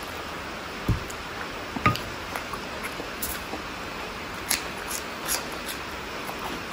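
Close-miked eating sounds: wet squishing and sharp mouth clicks of a person chewing, over a steady hiss, with soft thumps about one and two seconds in.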